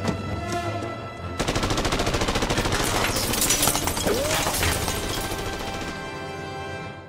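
Rapid, sustained machine-gun fire in a film soundtrack, over music. It starts about a second and a half in, runs for about four seconds, then fades away.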